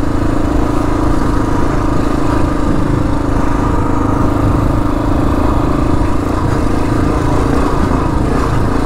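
2022 Kawasaki KLR 650's single-cylinder engine, fitted with a Lexx slip-on exhaust, running at a steady pace while the bike is ridden, with no revving up or down.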